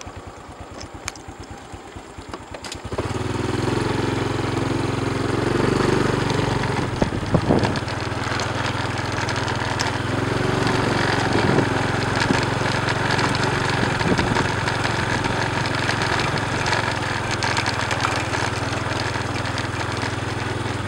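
Small motorcycle engine puttering at idle, then pulling away about three seconds in and running steadily under throttle along a rough road.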